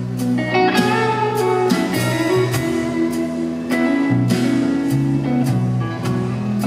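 Instrumental passage of a song: guitar plucked or strummed in a steady pulse of about two strokes a second, over held sustained notes.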